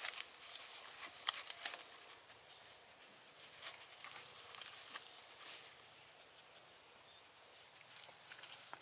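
Outdoor ambience: a steady high-pitched insect whine that steps up a little in pitch near the end, with a few light rustles and clicks as puppies are handled among dry leaves and brush.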